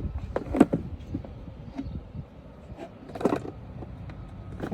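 Handling noise: a few light knocks and rustles over a low rumble, with a sharp click near the end.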